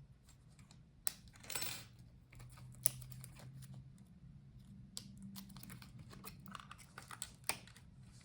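Scattered small clicks and taps of tools and fingers on the laptop's internal parts while a motherboard connector is unplugged, over a faint steady low hum.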